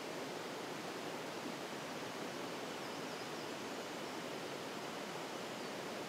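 Mountain waterfall cascading over rock into a stony streambed: a steady, even rush of falling water.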